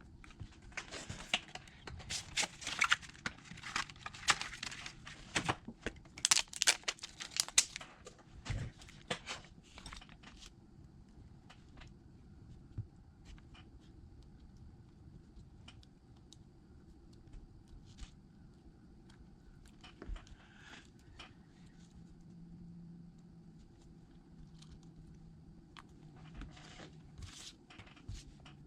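Crinkling, crackling handling noises from work on an iPad, like film or adhesive being peeled and parts being handled. They are dense for about the first eight seconds, then thin out to occasional light clicks and taps.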